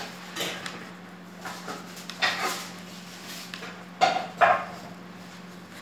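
Plastic gloves and crisp shredded kunafa dough rustling as the dough is rolled by hand around a stick, over a steady low hum. About four seconds in come two short loud sounds half a second apart.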